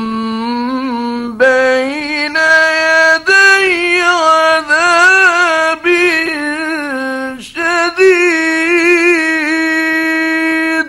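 A man's solo voice reciting the Quran in a drawn-out, melodic style: long held notes with ornamented turns and vibrato, in several phrases separated by short breaths.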